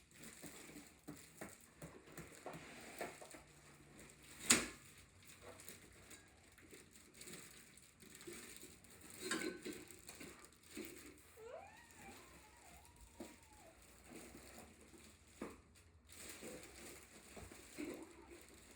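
Unpacking and handling sounds: scattered light rustles and knocks, with one sharp clack about four and a half seconds in and smaller knocks later.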